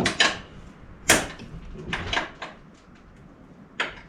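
Sharp metallic clicks and knocks of hand tools, about seven in all with the loudest about a second in, as a bolt on a rock slider is worked with an open-end wrench.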